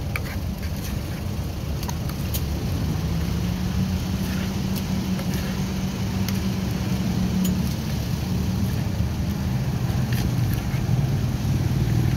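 A motor vehicle engine running close by: a steady low hum that shifts lower about ten seconds in. A few faint clicks from the wooden spoon working in the clay pot.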